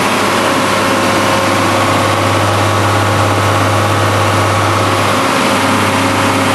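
Ford TW-30 tractor's turbocharged six-cylinder diesel running steadily at working revs while pulling a harrow, heard from inside the cab as an even, loud drone.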